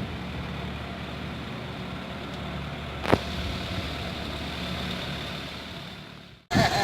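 A steady low rumble, like an engine running, with one sharp click about three seconds in; it fades away near the end.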